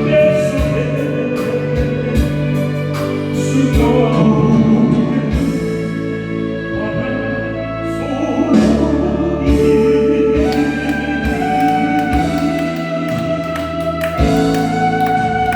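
Karaoke performance: a singer's voice over a recorded backing track with a steady drum beat and sustained instrumental notes.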